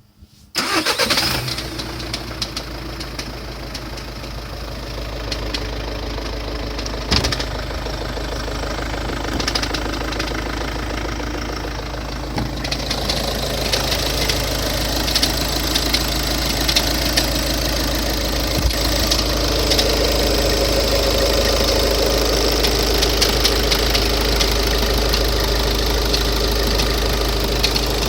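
2011 Volkswagen Touran 1.6L engine starting from cold about half a second in, then idling; the sound grows louder and brighter about twelve seconds in. The owner hears a strange noise from it only at idle right after a cold start after standing overnight, fading after a few minutes.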